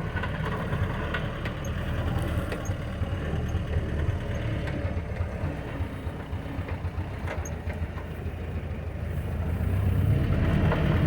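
Old Jeep's engine running at low speed over rough ground, heard from inside the cab, with a steady low rumble and a few knocks and rattles. It grows louder over the last few seconds.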